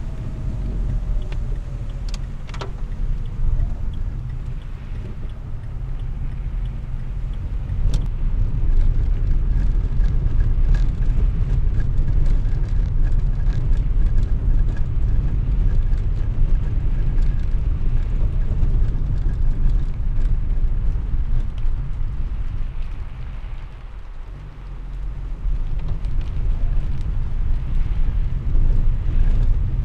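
Car driving on wet city streets in the rain, heard from inside the cabin: a steady low rumble of engine and tyres with faint scattered clicks. The rumble dips briefly about three-quarters of the way through.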